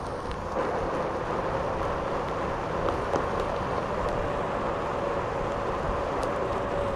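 Onewheel Pint electric skateboard rolling along: its hub motor gives a steady whine that drifts slightly up and back down in pitch with speed, over a steady rush of wind and ground noise.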